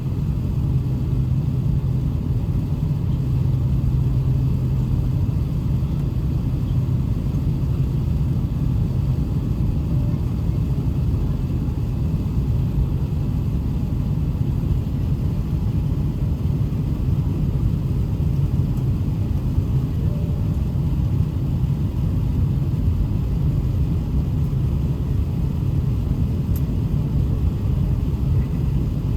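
Steady low rumble inside the cabin of an Emirates Airbus A380-800, with the engines at low power before the takeoff run. The level holds even, with no rise in pitch or loudness.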